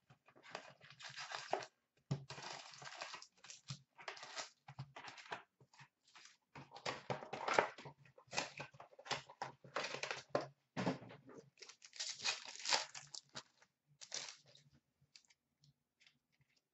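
Plastic shrink wrap being torn and crumpled off a box of hockey cards, followed by foil card packs crinkling as they are handled and torn open. The crackling comes in irregular bursts and thins out near the end.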